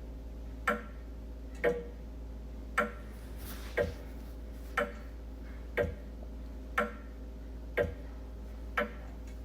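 Wall clock ticking evenly, about one tick a second, over a steady low hum.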